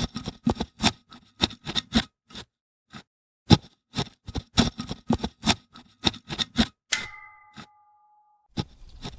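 Manual typewriter keys clacking in uneven runs, then the typewriter's bell dings once about seven seconds in, followed near the end by the scrape of the carriage being returned.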